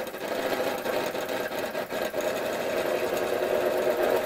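Linemar J-2734 toy steam engine running with a fast, continuous rattle from its loose tinplate parts. The racket comes from everything being so sloppy, with the engine fixed down only by little tabs.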